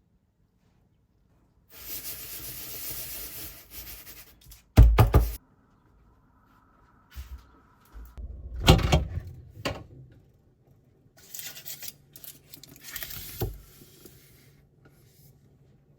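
Kitchen handling sounds: a stretch of rustling, then a loud thud and several lighter knocks of things being set down, with more rustling between them.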